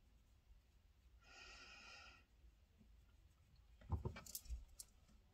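Mostly quiet room tone with a soft breath about a second in, then a quick run of light knocks and clicks about four seconds in.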